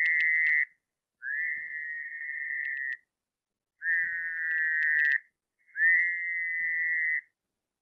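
Recorded Fowler's toad calls: a series of short trills at a steady high pitch, each about one and a half seconds long with a brief upward slide at the start, separated by short silences. The calls are shorter and smoother than an American toad's trill.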